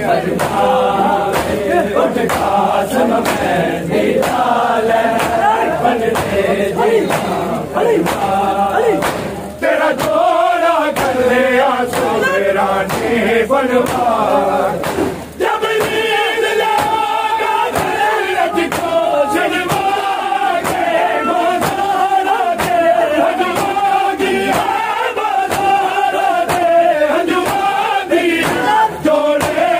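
A group of men chanting a noha in unison, with a steady beat of matam, hands struck on the chest, about twice a second. The chant breaks off briefly twice.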